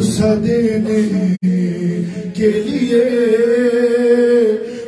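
A man chanting a noha, a Shia mourning lament, unaccompanied into a microphone, holding long wavering notes. The sound breaks off for a moment a little under halfway through.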